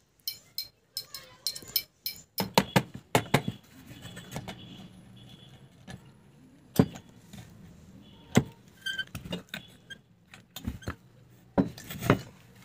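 Hammer tapping small nails into the plywood stock of a homemade wooden rifle, with metallic clinks from the strap and pipe. It comes in quick runs of light blows over the first few seconds, then single strikes spaced a second or more apart.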